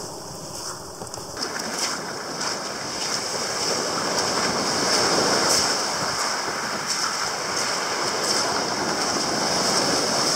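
Small waves breaking and washing up a shingle beach, with wind buffeting the microphone. The wash gets fuller and louder about a second and a half in.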